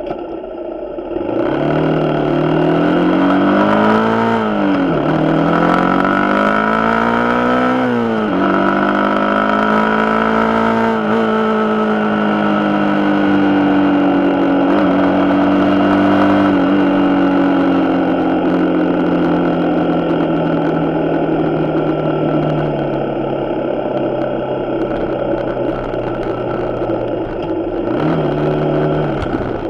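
Suzuki Gixxer 150's single-cylinder engine accelerating through the gears: the pitch climbs, drops sharply at upshifts about four and eight seconds in, then settles into a steady cruise that slowly falls away, with a short rise and drop near the end.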